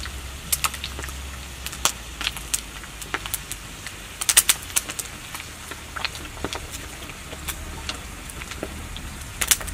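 Quail pieces frying in a wok over a wood fire, with irregular sharp metallic clicks and scrapes of tongs stirring them against the pan, in a quick cluster about four seconds in and again near the end.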